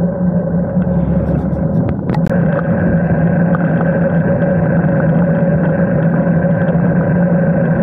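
Wind rushing over a handlebar-mounted camera and tyre noise from a road bike riding at speed: a steady, loud rushing noise with a low hum. A few sharp clicks about two seconds in.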